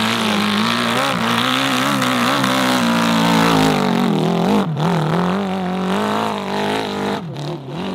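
Dirt bike engine revving hard under load as it climbs a steep dirt slope, its pitch wavering up and down as the throttle is worked, briefly dropping twice, once near the middle and once near the end.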